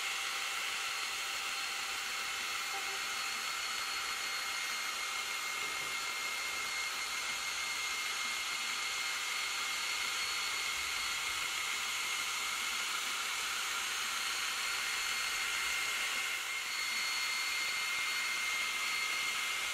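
Ortur Laser Master 3 laser engraver running while it engraves and cuts plywood: a steady fan-like whir with a thin, high, constant whine.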